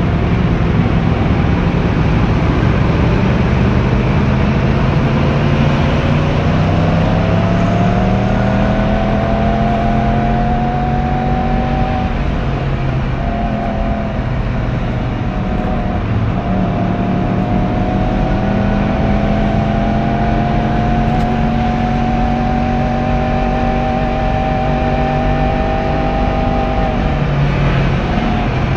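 Yamaha YZF-R1's 1000 cc crossplane inline-four running through its stock exhaust while riding, the engine note climbing slowly under gentle acceleration. The pitch breaks off about twelve seconds in and climbs again, then drops near the end as the revs fall.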